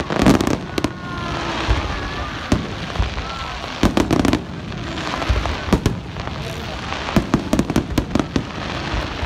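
Aerial fireworks display: shells bursting in repeated sharp bangs, some close together, with a dense run of rapid crackling pops near the end.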